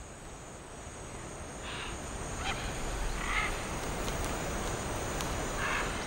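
Rainforest ambience: a steady high-pitched insect drone, with a few short bird calls from about two seconds in.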